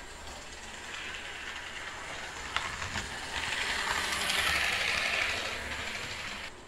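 HO-scale model locomotive running past on the layout track, its small electric motor and gears whirring, growing louder as it comes near and then fading, with two sharp clicks of the wheels on the track a little after two and a half seconds in. The motor runs unlubricated, and the owners think it is a bit stiff.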